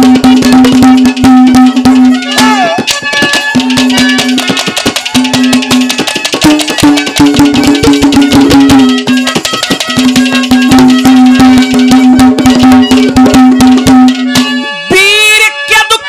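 Ragni folk music interlude: hand drums playing a fast, dense rhythm under a held melody note that breaks off and resumes several times. A man's singing voice comes in near the end.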